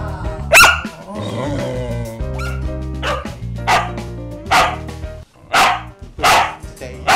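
A dog barking in short single barks, one just after the start and then a steady run about one every three-quarters of a second from about three seconds in, over background music.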